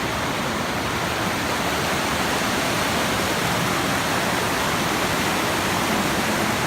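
Steady, loud rush of a waterfall's falling water, close by.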